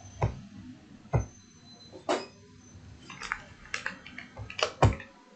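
A handful of light knocks and clicks at irregular intervals over a quiet room, the loudest near the end.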